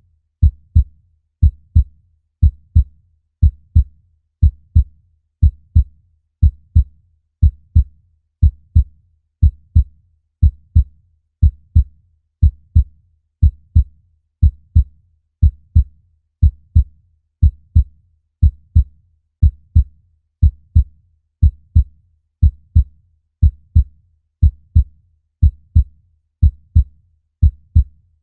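Human heartbeat: a steady lub-dub, two short deep thumps close together, repeating evenly about once a second.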